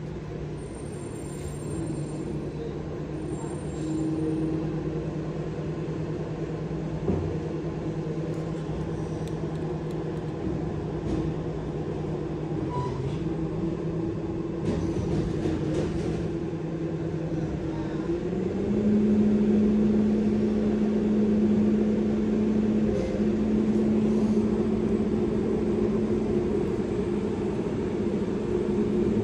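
A machine running with a steady, pitched hum. About eighteen seconds in it steps up to a higher pitch and gets louder, then holds there.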